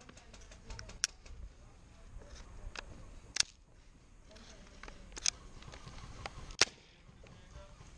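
Airsoft gunfire: irregular single sharp snaps, four loud ones and several fainter ones between.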